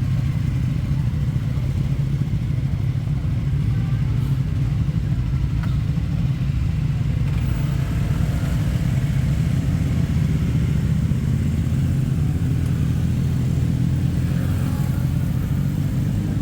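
Motorcycle engines idling with a steady, even low rumble, with no revving.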